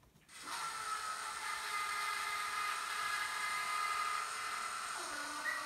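Steady whining hum made of several tones from a Märklin H0 V160 model locomotive fitted with an ESU LokSound V4.0 sound decoder, starting about half a second in. Near the end the tones shift and a lower tone joins.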